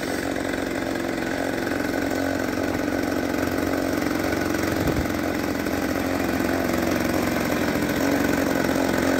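Two-stroke Ural chainsaw engine of a homemade single-wheel snow machine running steadily at low throttle, its sound growing slightly louder as the machine creeps across the snow.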